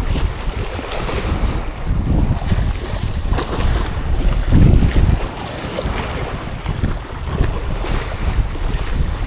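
Wind buffeting the microphone in uneven gusts, with sea waves washing in the background.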